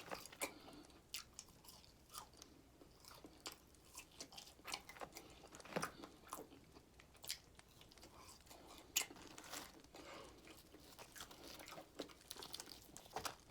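A person chewing and biting into crispy fried chicken wings close to the microphone: irregular soft crunches and mouth sounds.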